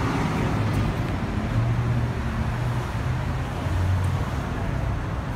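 Steady city street traffic noise, with a low engine hum that swells and fades several times.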